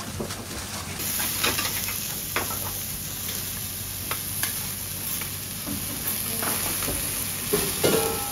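Sliced onion, eggplant and kabocha squash sizzling on a steel teppanyaki griddle, with metal spatulas scraping and clicking against the plate a few times. The spatula strokes are loudest near the end.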